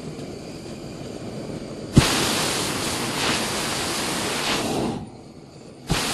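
Hot air balloon's propane burner firing in two blasts: a loud steady roar that starts with a thump about two seconds in and cuts off after some three seconds, then a second blast starting the same way near the end.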